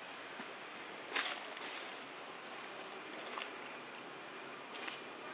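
Steady outdoor background hiss with a few short, sharp crackles of dry fallen leaves stirred by macaques. The loudest crackle comes about a second in, and two fainter ones follow later.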